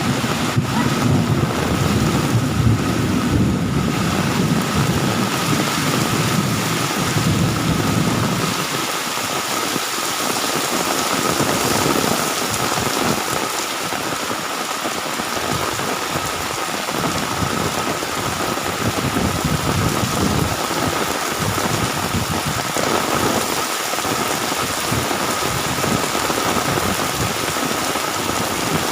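Heavy rain pouring steadily, with a low rumble under it for the first several seconds that fades about eight seconds in.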